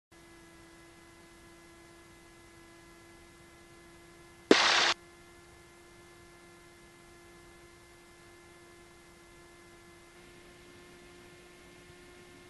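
Steady electrical hum and hiss on a Cessna 172's intercom audio feed. About four and a half seconds in comes a sharp click and a short, loud burst of radio static.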